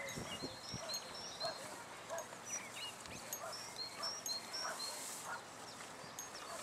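Small birds chirping in short high notes, over the soft rustle and crunch of horses eating hay.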